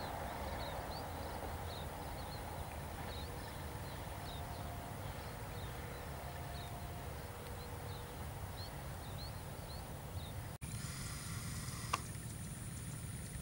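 Faint outdoor ambience: a steady low rumble with short high chirps repeating every second or so. The sound drops out for an instant about three-quarters of the way through, then a single sharp click follows.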